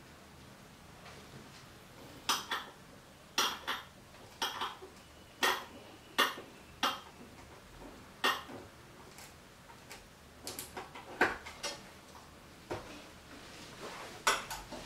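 Hand tool clinking against the steel parts of a tripod arm rest while its screws are tightened: a series of sharp metallic clicks starting about two seconds in, irregularly spaced, one or two a second.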